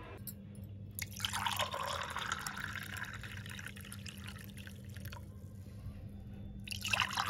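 Lemon juice being poured from a water pot into glasses, a splashing, filling stream. One pour starts about a second in and runs about four seconds. A second pour starts near the end.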